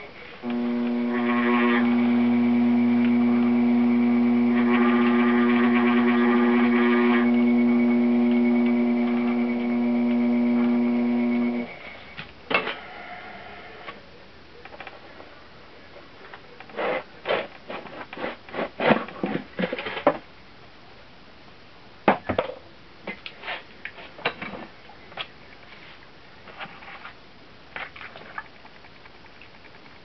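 Electric potter's wheel motor humming steadily, then cutting off abruptly about twelve seconds in. After it, scattered scrapes and knocks as wet hands work the clay of the spinning pot.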